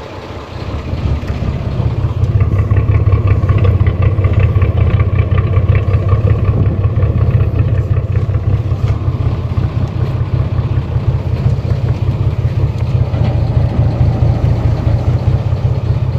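Boat's diesel engine running: a steady low drone that swells louder about a second in and then holds.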